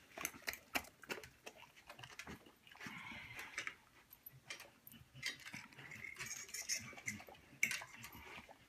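Two dogs, an Australian cattle dog and a pit bull, eating rice off a metal spoon: irregular sharp clicks, with eating noises in between.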